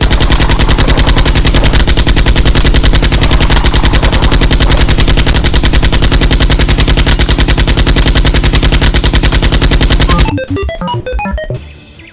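Rapid machine-gun fire, one continuous burst of about ten seconds that starts and cuts off abruptly. It is followed by a few scattered clicks and short notes.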